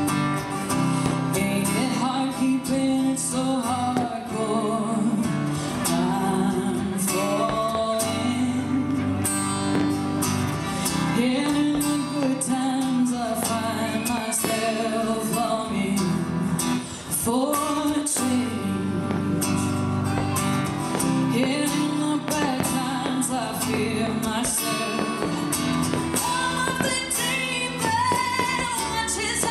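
A woman singing to guitar accompaniment.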